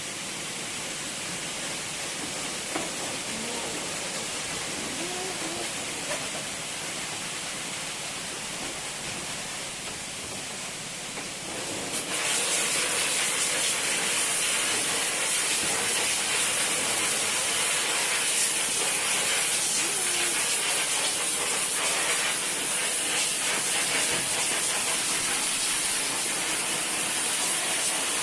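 Steady spraying hiss, which gets suddenly louder and brighter about twelve seconds in.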